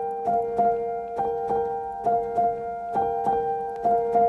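Background music: a piano-like keyboard plays a repeating figure of paired notes about once a second over a steady held tone.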